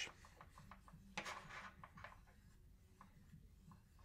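Faint rubbing and soft scuffs of a microfiber cloth wiping a Pebble Time Round smartwatch's screen, with a slightly louder rustle about a second in.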